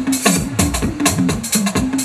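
Percussion-driven electronic show music with a fast, steady drum beat and deep booming drum hits.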